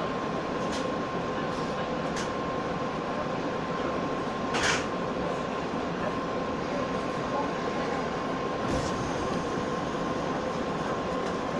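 Inside a JR West 117 series electric train running slowly through depot trackwork: a steady rumble of the moving train with a faint constant tone, broken by a few sharp clicks from the wheels and one louder burst of noise about four and a half seconds in.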